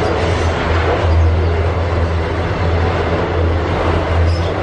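Double-stack container train's loaded well cars rolling past, a steady, loud rumble of steel wheels on the rails.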